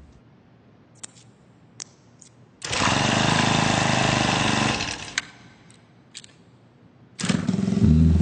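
A few sharp clicks, then an engine runs steadily for about two seconds and dies away; another loud run starts near the end.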